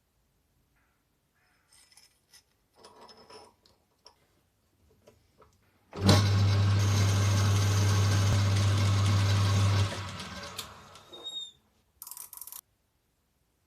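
Electric motor running steadily at full speed for about four seconds with a low hum, then switched off and winding down, after a few light knocks and handling sounds; a short burst of noise follows near the end.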